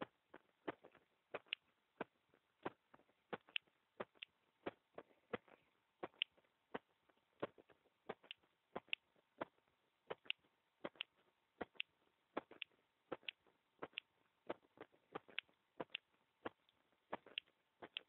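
Human heartbeat picked up by a microphone pressed against the bare chest: a faint, steady rhythm of short, sharp beats, many heard in pairs.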